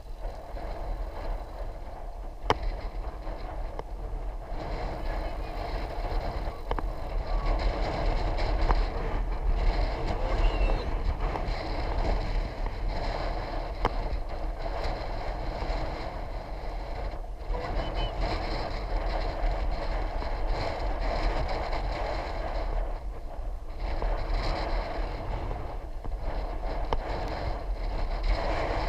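Steady rush of wind on the microphone and road rumble while riding along a road, swelling and easing, with a few faint clicks.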